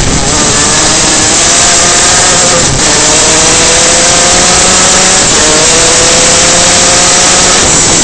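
Superkart engine pulling hard at speed, its pitch climbing, dropping back about three seconds in and again near five and a half seconds, then climbing again each time, under heavy wind rush on the onboard microphone.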